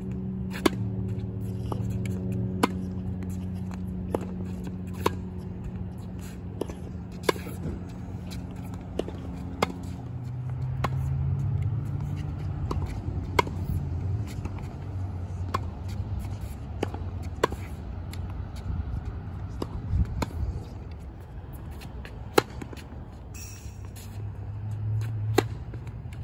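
Tennis ball struck by a racket again and again in a volley drill, a sharp pop every second or two, over a steady low hum.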